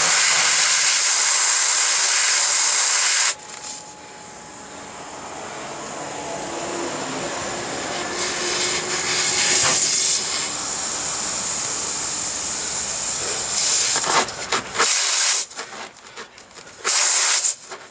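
Compressed air hissing out of a punctured car tire as the hole is reamed with a plug-kit reamer. The hiss is loud for the first three seconds and cuts off abruptly. Quieter rising hiss follows, with two short loud blasts near the end.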